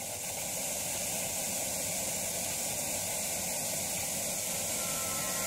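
Steady hiss of TV-static white noise, with faint steady music tones starting to come in near the end.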